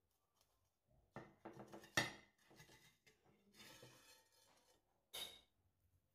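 Non-stick frying pan knocking and clinking against a ceramic plate as the cake is turned out onto it: several light knocks about a second in, the sharpest near two seconds, a soft sliding noise around four seconds, and one more short knock near the end.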